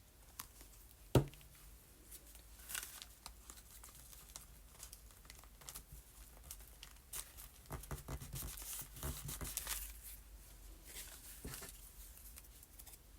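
Paper being handled and torn: scattered rustling and short tearing strokes, busiest in the second half, with a sharp tap about a second in.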